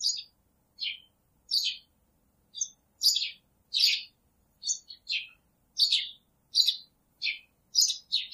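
Baby chicks peeping: a string of short, high chirps, each falling in pitch, about one and a half a second.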